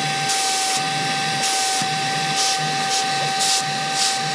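Brigii M1 mini handheld vacuum running: a steady high motor whine over a rush of air whose hiss surges in and out irregularly. A lot of air is blowing out of its USB-C charging port, which is strange for the unit.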